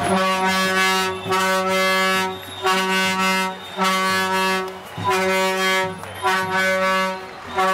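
A horn sounded in a run of about seven long blasts, each about a second long with short breaks between them, every blast on the same steady pitch.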